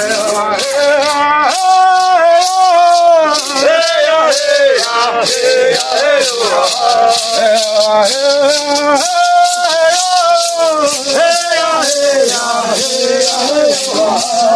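Chanted singing over maracá rattles shaken in a steady rhythm.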